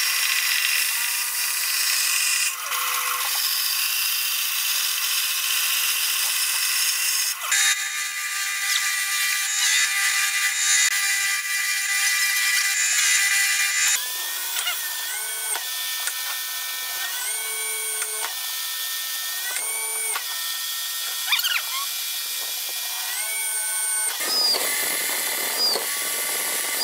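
Power tools cutting hardwood: a band saw runs steadily for the first several seconds. From about halfway, an electric drill bores holes, its motor pitch sagging and recovering several times as the bit bites into the wood and is eased off.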